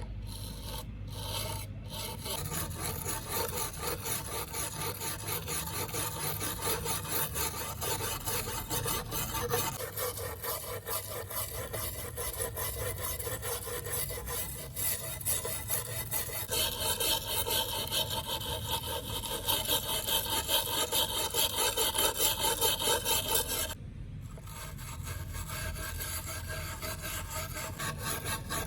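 Quick back-and-forth scrubbing strokes of an abrasive on a rusty knife blade, taking the rust off; the strokes grow louder in the middle stretch and ease off near the end.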